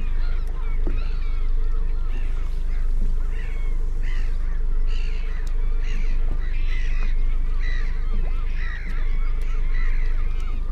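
A flock of seabirds feeding over a shoal of baitfish, many harsh calls overlapping, growing busier about four seconds in. A steady low hum runs underneath.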